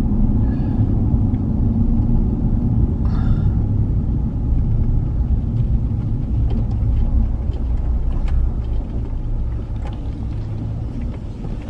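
Pickup truck towing an RV trailer, its engine and road noise making a steady low rumble that eases a little in the last few seconds as it slows for a turnaround.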